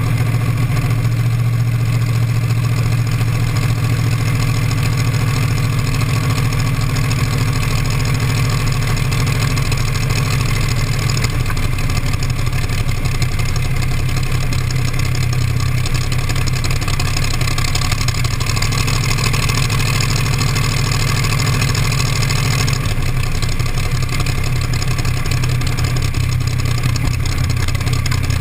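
T-bucket hot rod's engine running at a steady idle, a loud, even low hum with no revving.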